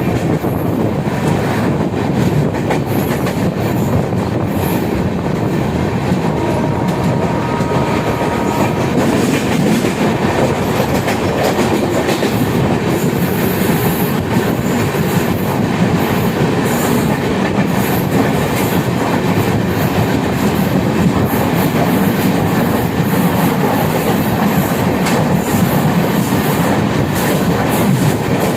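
Moving train: a steady, even rumble of the running train on the rails, with a faint thin tone heard briefly about seven seconds in.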